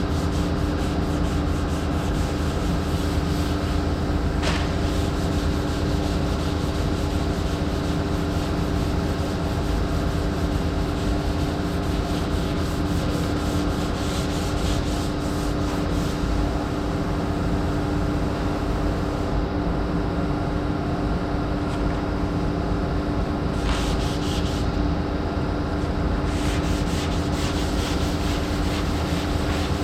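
Power sander running steadily with its pad rubbing over a body panel: sanding down body filler.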